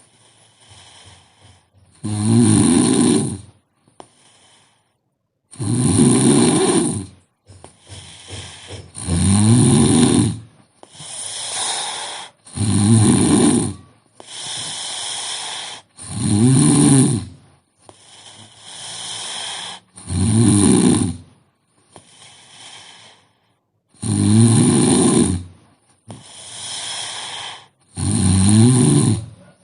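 A woman snoring in her sleep: a loud snore roughly every three and a half to four seconds, each lasting about a second, with quieter breathing sounds between them.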